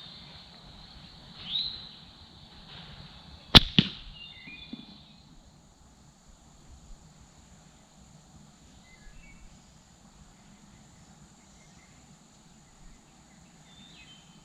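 Slingshot shot with a steel ball: a sharp crack about three and a half seconds in, followed a fraction of a second later by a second crack.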